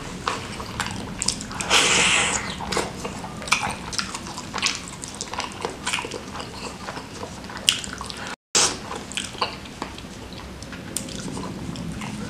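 Close-miked wet eating sounds: chewing, lip smacks and sucking clicks as a sauce-soaked chicken wing from seblak is pulled apart by gloved fingers and eaten, with a short hissing slurp about two seconds in. The sound cuts out completely for a moment just past eight seconds.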